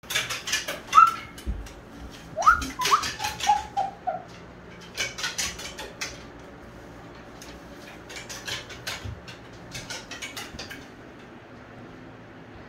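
Moluccan cockatoo running about on a wooden slatted platform, its feet tapping in quick bursts. A few short chirps come about a second in and again between two and four seconds in.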